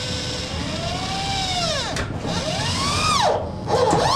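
Electric drill run in pulses, its motor whine rising in pitch and falling again about three times.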